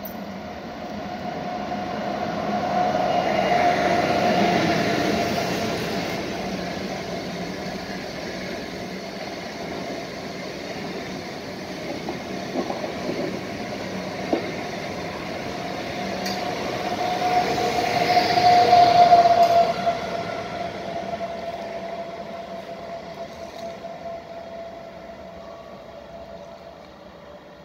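Renfe Alvia S730 train passing along a station platform: a rolling rumble with a steady whine that swells near the start and again past the middle, with a few wheel clicks in between, then fades as the train moves away.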